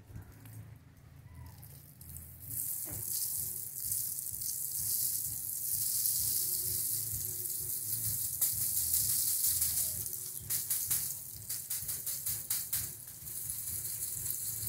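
Dried sesame stalks shaken upside down, the seeds rattling out of the open pods and pattering onto a sheet along with rustling dry leaves: a steady hiss from about two seconds in, turning into a run of quick clicks and taps from about ten seconds.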